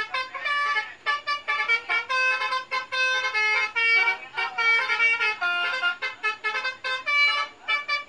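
Bus telolet horn, a multi-tone musical horn, playing a fast run of short notes that jump from pitch to pitch like a tune.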